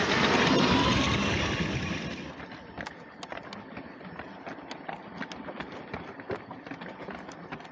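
Motorised LEGO train running on plastic track: a loud rush of motor and wheel noise that fades away about two seconds in, then quieter irregular clicking of the wheels over the track joints.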